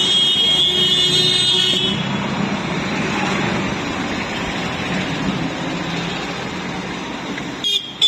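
Road traffic running past a street stall. A high steady tone sounds for the first two seconds, then the traffic noise fades slightly. A short sharp click comes near the end.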